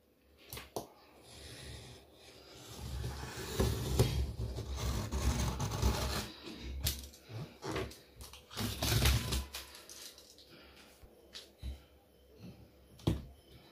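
Box cutter blade slicing through packing tape along the seam of a cardboard box, a rough scraping in two main stretches, with a few sharp knocks as the cardboard is handled.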